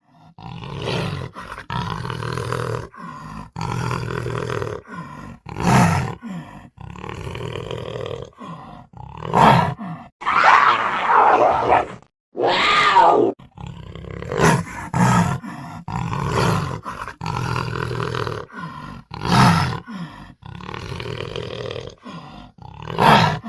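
A panther giving a long series of growls and roars, each call lasting a second or two with short gaps between. The loudest roars come around the middle.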